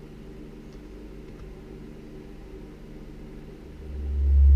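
A low, steady hum runs throughout. About three and a half seconds in, a 70 Hz sine test tone from Kicker Comp R 10-inch subwoofers swells in and becomes loud and steady; it is being played to tune the amplifier.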